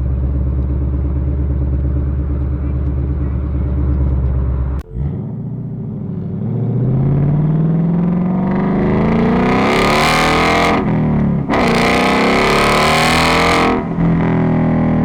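Car engine running steadily at a low idle, then after an abrupt cut an engine revs up, its pitch rising for several seconds into a loud exhaust rasp. The throttle lifts for a moment and it revs high again.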